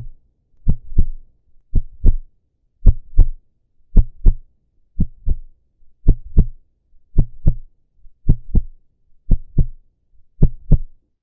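Heartbeat sound effect: a slow, steady lub-dub of paired deep thumps, about one beat a second, ten beats in all.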